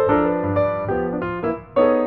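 Background piano music: single notes and chords struck in a lively, even rhythm.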